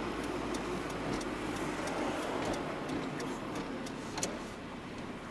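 In-cab engine and road noise of a GAZelle van driving on the highway, a steady rumble with scattered light clicks and rattles, one sharper click about four seconds in.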